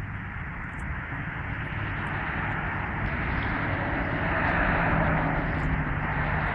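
Outdoor traffic noise from passing vehicles, a steady rushing with a low engine hum that swells to its loudest a few seconds in. No siren is sounding yet.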